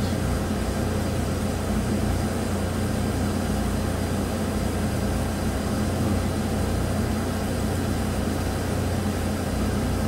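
Chevrolet Silverado V8 engine idling steadily with a low hum. It is running with a dead miss on cylinder 5, whose spark plug wire is off.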